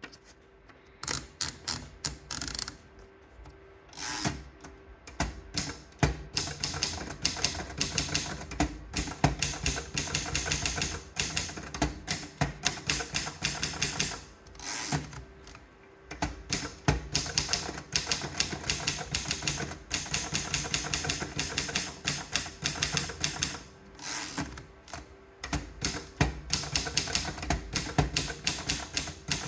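Continental 340 typewriter being typed on: sharp key strikes, several a second, in runs broken by a few short pauses.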